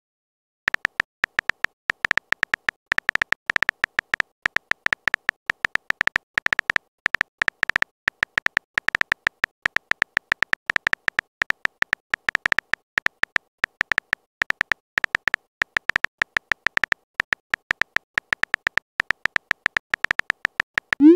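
Phone keyboard typing sounds from a texting-story app: rapid, irregular short taps, several a second, as a message is typed out letter by letter. A short rising whoosh comes right at the end.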